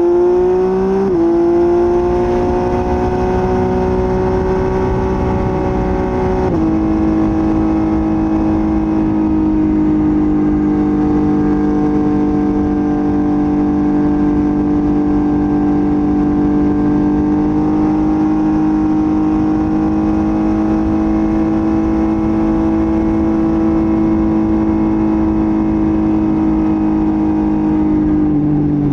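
Motorcycle engine under way. The revs climb at first, then change with gear shifts about a second in and at about six seconds. After that it holds a steady note at cruising speed, and the revs fall near the end, with a low wind rumble underneath.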